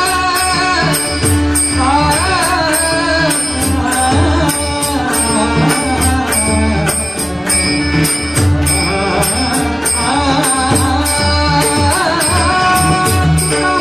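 Marathi devotional abhang sung by a male bhajan singer, the voice gliding through ornamented phrases over a steady held drone, with drum strokes and hand cymbals keeping a regular beat.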